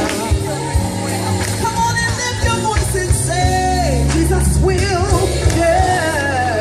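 A song playing: a singing voice over bass and drums.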